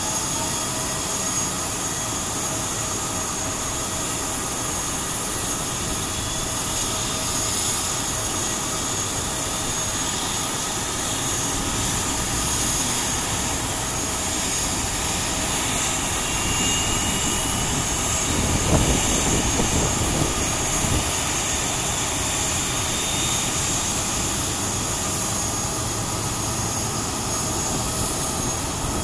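Steady high-pitched turbine whine from a Batik Air Airbus A320 airliner during pushback, with a brief low rumble about two-thirds of the way through.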